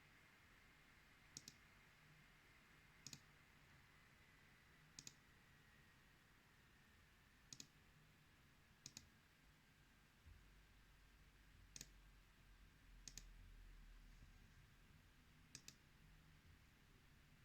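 Near silence through a laptop's built-in microphone, with no loud whine, broken by eight sharp clicks, each a quick double (press and release), a second or two apart. A very faint thin high tone sinks slowly over the first half, and a faint low hum comes in about ten seconds in.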